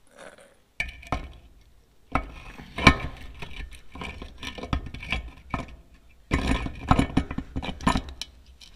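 Metal clinks, taps and scrapes of hand tools and steel brake parts being handled at a truck's front brake chamber push rod and slack adjuster, in irregular clusters that start abruptly a few times.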